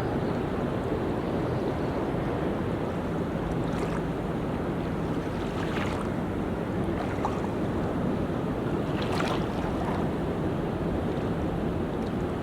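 Ocean surf washing onto a beach: a steady rush of waves, with a few brief splashes standing out, the strongest about nine seconds in.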